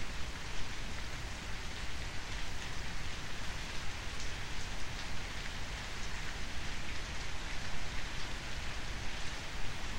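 Steady rain falling, an even hiss with scattered drop sounds.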